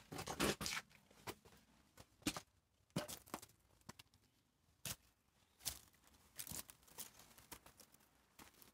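Footsteps crunching over broken concrete rubble and grit. The steps come thick in the first second, then settle into single, spaced steps on a dirt path.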